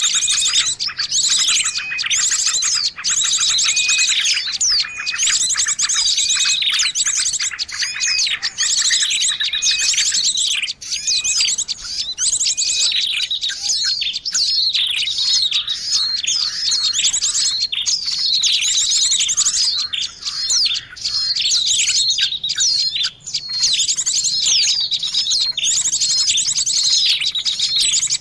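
Bird song from a lure recording: rapid, high chirps and trills repeated densely and without pause.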